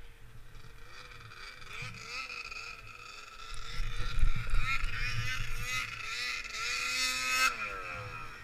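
Snowmobile engines: one idles steadily while another revs up and rides past, its engine note dropping sharply about seven and a half seconds in.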